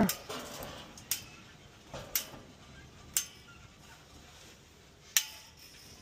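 A few sharp small clicks, roughly a second apart, from hands working the wiring and wire nuts of a Honeywell four-wire zone valve.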